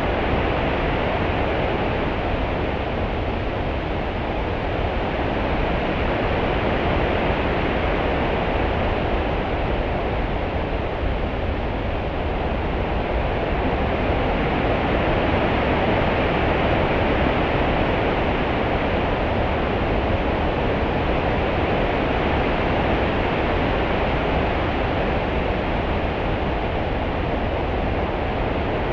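Open-sea water sound: a steady rushing wash of swell and ripples with a low rumble underneath, slowly swelling and easing.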